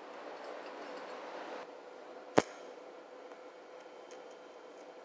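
Steel wire brush scrubbing a galvanized nut on steel tube. After a cut comes a single sharp snap, then the faint steady hum of a TIG welding arc on the galvanized nut, with a few small ticks.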